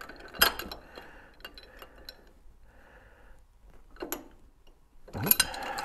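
Steel wrench clinking and scraping against the lock nut on the rear wheel hub of a 1914 Studebaker SC-4. There is a sharp clank about half a second in, another near four seconds, and a cluster of clinks near the end.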